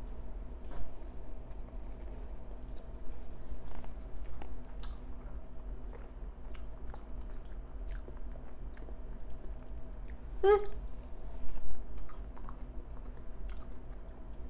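A person chewing a bite of deep-fried rough puff pastry apple pie, with small crunching clicks, and a short sound from the voice about ten and a half seconds in.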